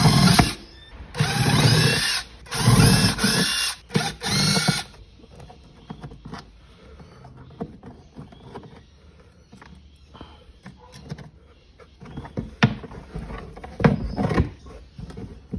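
Makita cordless impact driver running in four short bursts, each with a rising whine, undoing the screws that hold the mesh in a plastic lawnmower grass catcher. After that come quieter sounds of the plastic catcher being handled, with a few sharp knocks near the end.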